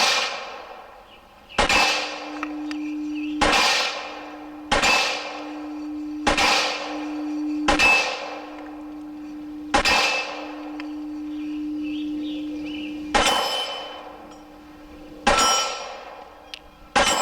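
Glock 26 9mm pistol fired in slow, deliberate single shots, about one every 1.5 to 2 seconds with a longer gap near the middle, the bullets clanging on steel targets. A steel target keeps up a steady ringing tone between the shots.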